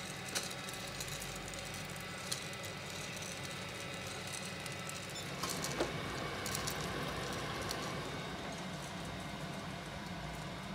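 Home drum coffee roaster running with a steady mechanical hum from its motor and fan, with a few faint clicks.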